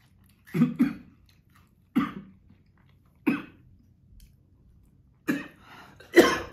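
A person coughing in a string of sharp coughs, about six, the loudest near the end. The coughing is set off by the fiery chili seasoning dust on extremely hot cheese puffs.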